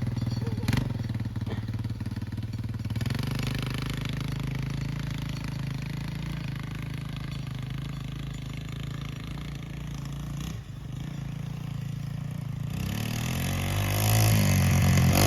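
1986 Yamaha YTM225 three-wheeler's single-cylinder four-stroke engine running steadily at low revs, then picking up revs and getting louder over the last couple of seconds.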